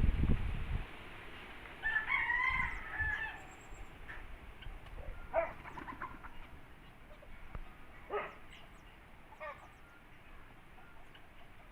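A rooster crowing once, about two seconds in, then a few short calls. A brief low rumble at the very start.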